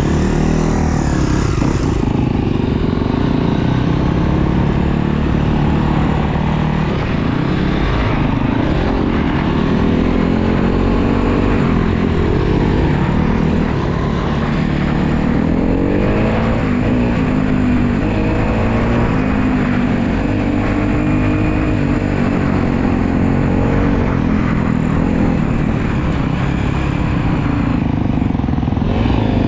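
Honda CRF250R dirt bike's single-cylinder four-stroke engine under way, revving up and falling back again and again as the rider works the throttle.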